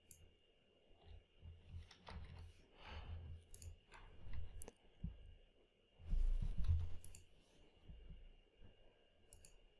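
Sparse computer mouse clicks and an occasional key press, with soft low thuds, the loudest about six seconds in, and a faint steady high whine underneath.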